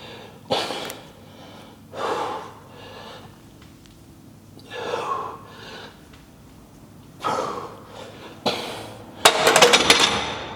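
A man breathing hard with forceful gasping exhales, one every one to three seconds, as he grinds through front squat reps. The last and loudest burst comes near the end.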